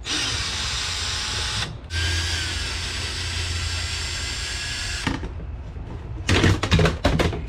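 Cordless drill backing out small Phillips screws from a window shade's headrail: a short run, a brief stop, then a longer steady run of about three seconds. Near the end come a burst of knocks and rattles as the pleated shade is pulled off its brackets.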